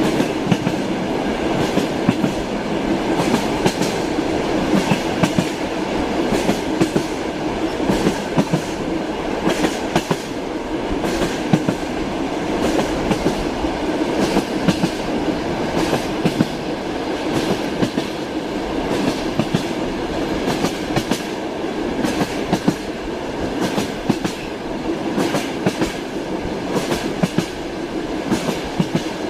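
A moving train's wheels clattering over rail joints: a steady running rumble broken by frequent sharp knocks.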